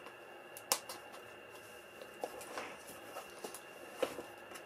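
Card and paper pages of a handmade scrapbook album being handled, with a flap pressed shut: one sharp click about a second in, then a few light taps and soft paper sounds.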